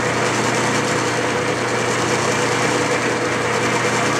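Clausing metal lathe running steadily, its motor and gear train giving an even hum, while it takes a power-fed Acme threading pass.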